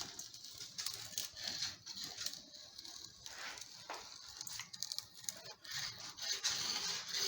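Solid-wheel screen roller tool rolling over nylon screen mesh, pressing it into the groove of a window-screen frame: an uneven scratchy rubbing with scattered small clicks.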